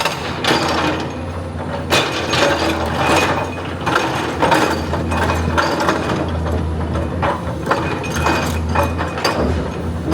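Excavator working, its engine running with a steady low hum under irregular clanks and knocks of metal and rock.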